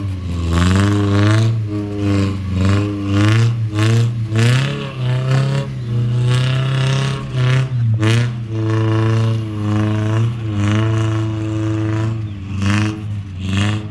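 An off-road 4x4's engine revving, its pitch rising and falling every second or so as the throttle is worked on and off.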